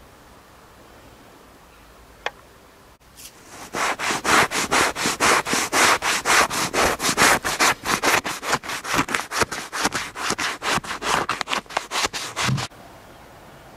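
Flint scraper dragged in quick, short strokes over an animal hide stretched on a wooden frame, about four to five scrapes a second. The scraping starts about four seconds in and stops abruptly near the end.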